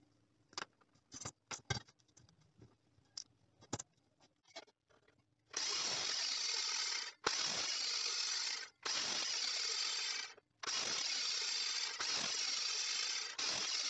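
A few light clicks and taps of a steel tube being handled and measured. Then a metal-cutting chop saw slices through 40x30 mm rectangular steel tube in several loud, harsh stretches, each lasting a second or two and broken off abruptly.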